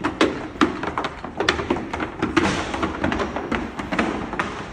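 Hooves clip-clopping on a hard floor as horses approach: a run of irregular knocks and taps, several a second.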